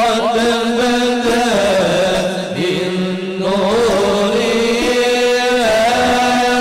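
Arabic devotional chant in praise of the Prophet (sholawat): a voice sings long, sliding melodic phrases over a steady held note.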